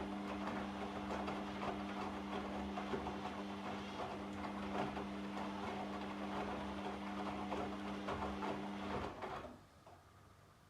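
Front-loading washing machine turning its drum: the motor hums steadily under the tumbling of wet laundry, then the drum stops about nine seconds in.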